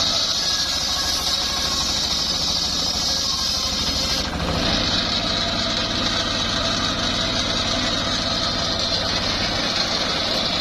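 Homemade circular sawmill running steadily, its engine drone topped by a high steady whine, which dips briefly about four seconds in.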